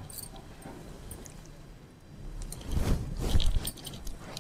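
Rustling and scraping of sarees being handled and moved. It is soft at first and gets louder in a cluster of rustles about three seconds in.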